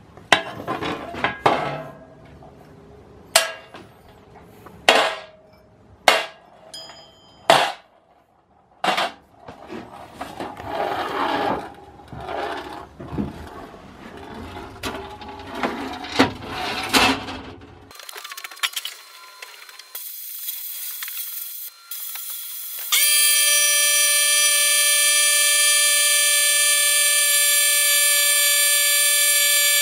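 Small cast-iron and steel hand-plane parts clink and knock against a galvanized sheet-metal parts tray in a string of sharp strikes. About 23 seconds in, the sandblasting cabinet starts up with a loud, steady whine that holds without change.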